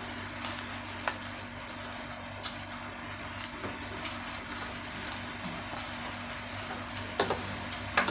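Raw rice grains crunching between the teeth: a few scattered sharp crunches over a steady background hiss and low hum, with the loudest crunches near the end.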